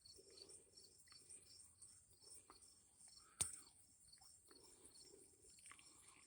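Near silence, with a faint, high, steady chirring of insects and one sharp click about three and a half seconds in.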